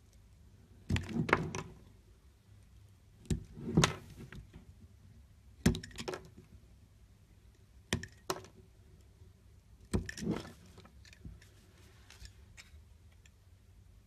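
A snap-off utility knife blade cutting into a bar of soap: five short cuts about two seconds apart, each beginning with a sharp crack and trailing into a brief crackle as a slice shears off. A few faint crackles follow the last cut.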